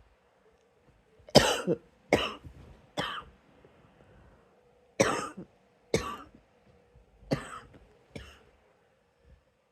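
A person coughing in two bouts, three coughs then four, each short and sharp, working to bring up something caught in the throat.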